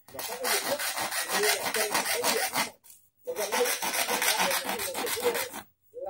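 Hand-held hacksaw blade sawing the black end frame of a Daihatsu Terios cabin air filter, rasping in quick back-and-forth strokes. There are two runs of sawing, a short pause about halfway through, and a stop near the end.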